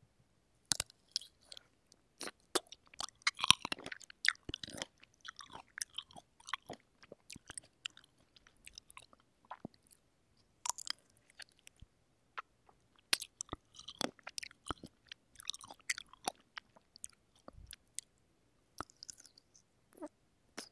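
Close-miked chewing of juicy fresh cherries: wet bites and chewing with many sharp mouth and lip clicks, thickest about three to five seconds in and again around fifteen seconds.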